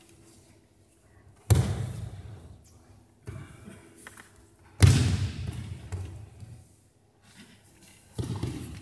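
Aikido breakfalls: bodies being thrown down onto mats, three loud thudding slaps about a second and a half, five and eight seconds in, the middle one loudest, plus a softer one in between, each echoing in the large hall.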